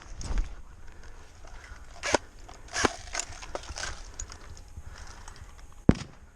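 Footsteps and rustling of someone moving on foot, with a few sharp clicks or knocks, the loudest near the end.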